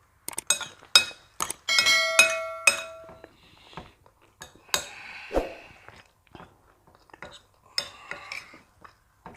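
Eating sounds: cutlery clicking and clinking against plates and bowls, with a few ringing clinks about two seconds in, and chewing between them.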